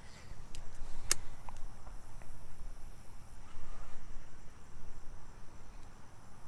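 Outdoor pond-side ambience: an uneven low rumble with a faint steady high insect buzz, and one sharp click about a second in.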